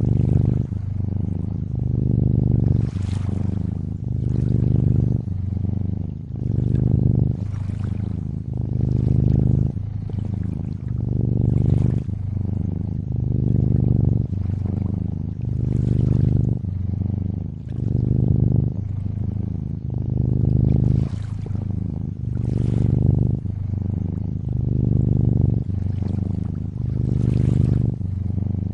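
Domestic cat purring steadily, swelling and easing with each breath about every two seconds, with gentle lakeside water lapping and trickling faintly behind it.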